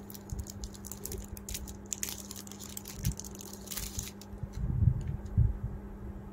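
Thin plastic wrapper crinkling as a wooden neem comb is handled and taken out of it, followed by a few dull handling knocks, over a steady low hum.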